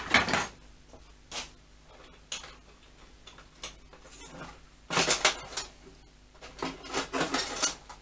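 Small metal hand tools clinking and tapping as they are handled: a sharp clink at the start, a few single taps, then two short runs of rattling clinks in the second half.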